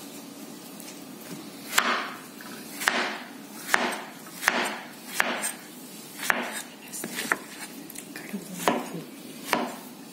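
Kitchen knife chopping a peeled, roasted raw banana into small pieces on a wooden cutting board: about nine knocks of the blade on the board, roughly one a second, starting about two seconds in.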